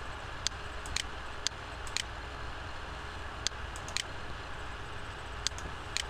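Computer mouse buttons clicking about eight times, sharp single clicks often in pairs half a second apart, over a steady low hum of background noise.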